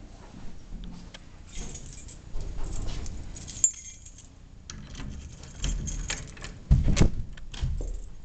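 A bunch of keys jangling at a door, with sharp clicks and a few heavier knocks from the lock and handle as the door is unlocked and opened.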